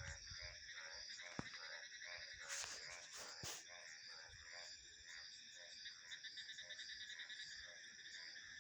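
Frogs croaking in rapid pulsed calls over a steady chorus of crickets and other insects trilling at several high pitches.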